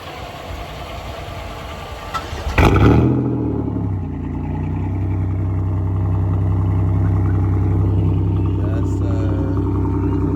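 GM 3800 V6 cold start: the engine catches about two and a half seconds in with a loud flare that falls back, then settles into a steady idle.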